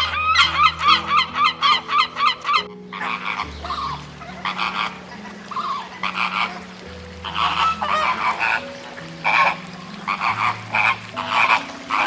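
Geese honking in a rapid, even series of calls. After a sudden cut about three seconds in, a looser, more scattered run of honks follows. Soft background music with low held notes plays underneath.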